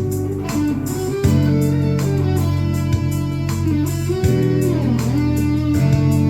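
Guitar playing: sustained chords and notes struck afresh about every second or so, with a note sliding down in pitch and back up about five seconds in.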